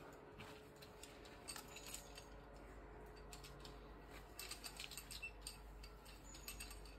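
Faint, scattered clinks and clicks of climbing gear, carabiners and quickdraws jangling on a harness as rope is handled, coming in small clusters that are thickest from about four and a half seconds in.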